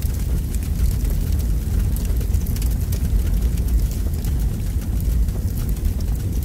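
Steady deep rumble with a faint crackle above it.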